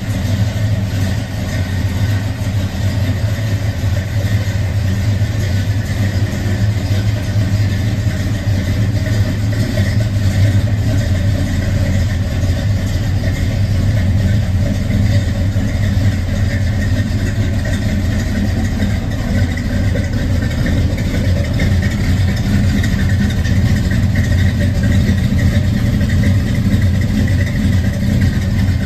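1970 Chevrolet C-10 pickup's engine idling steadily, with a deep even note and no revving.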